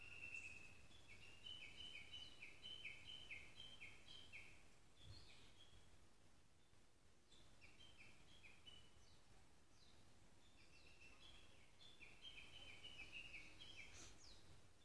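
Faint wild songbird song in three phrases: quick runs of short whistled notes alternating between a lower and a higher pitch, each run lasting a few seconds with pauses between.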